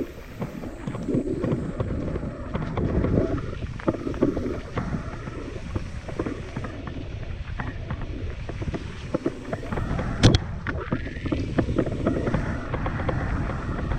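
Mountain bike riding down a rough trail: the bike rattles and clatters with many quick knocks over the ground, and wind buffets the microphone. A sharp, louder knock comes about ten seconds in.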